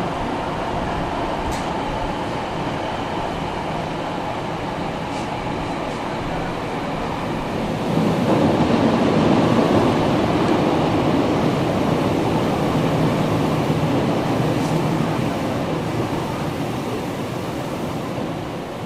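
Inside a Nagoya City Subway 6050 series train running through the tunnel: a steady rumble of wheels and motors. The rumble grows louder about eight seconds in and eases off again near the end.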